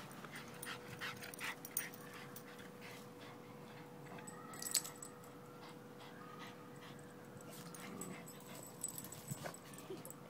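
A Boston terrier and a small black dog playing rough, making dog play noises amid scuffling in dirt and wood chips, with a sharp click about halfway through. A faint steady tone hums in the background.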